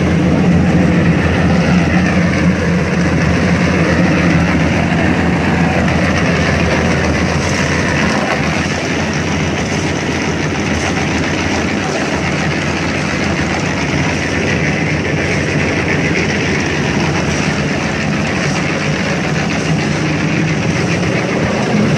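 Engine of a portable drum concrete mixer running steadily under load, with the drum turning on its ring gear.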